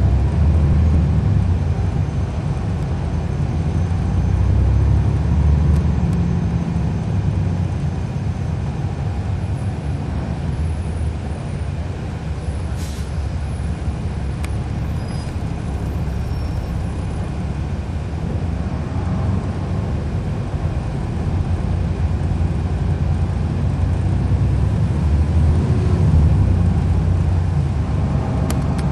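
Cummins ISL9 inline-six diesel and ZF Ecolife automatic drivetrain of a NABI 40-ft transit bus, heard from on board while the bus is under way: a steady low rumble whose level swells and eases as the engine pulls.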